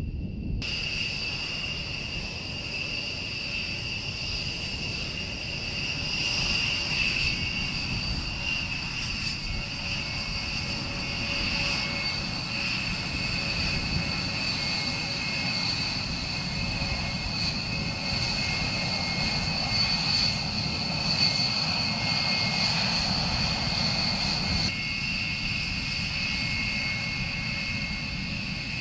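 A Rockwell B-1B Lancer's General Electric F101 afterburning turbofan engines running as the bomber rolls along the runway: a steady jet rumble with a high-pitched whine over it, the mix shifting slightly about three-quarters of the way through.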